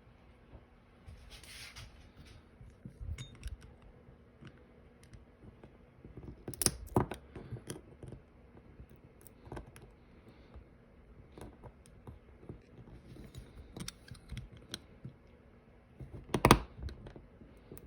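Small clicks, taps and scrapes of die-cast model truck parts being handled and pried apart, with two louder sharp knocks, one about a third of the way in and one near the end.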